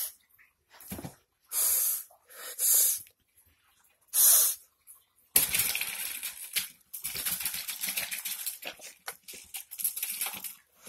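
Three short hissing, sniffing bursts, then about five seconds of wet slurping and smacking with many small clicks as a sock worn on a hand is worked into a bowl of liquid, the sock puppet made to sniff and eat.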